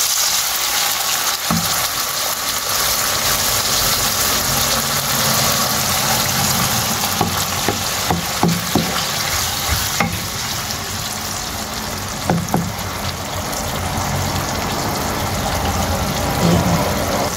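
Minced meat with onions and garlic sizzling in a nonstick wok with a little water and soy sauce in it, stirred with a wooden spoon that knocks against the pan now and then. The sizzle is steady and somewhat louder in the first few seconds.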